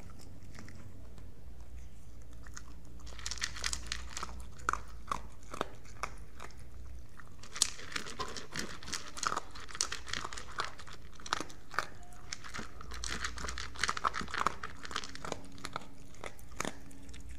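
Dog chewing and crunching food in bursts of sharp crunches with short pauses. The first three seconds hold only a low hum before the chewing starts.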